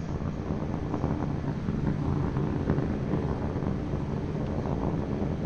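Steady low roar of SpaceX Starship SN15's Raptor rocket engines burning during ascent.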